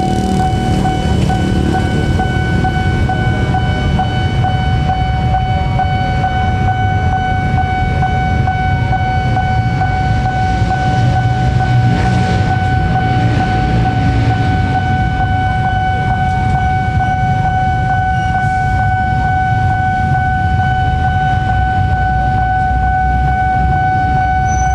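Level crossing warning alarm sounding one steady, unbroken high tone over a constant low rumble of motorbike engines and an approaching diesel train.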